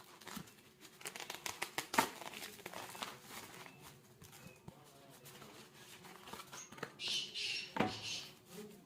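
Packaging being handled and opened by hand: scattered clicks and rustles of cardboard and plastic, with a sharper click about two seconds in and a short crinkling rustle about seven seconds in.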